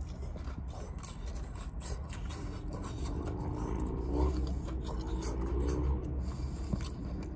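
A man biting into and chewing a fried egg roll close to the microphone, with wet mouth clicks and smacks, over a steady low hum. In the middle there is a soft hummed 'mm' of his voice.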